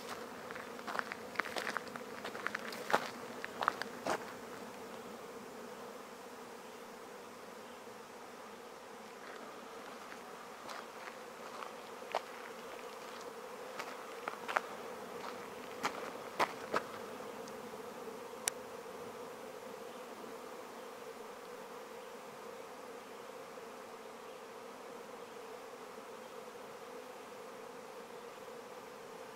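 Steady buzzing hum of a large swarm of flying insects, which the uploader takes for wasps. A few sharp clicks cut through the hum in the first few seconds and again about halfway through.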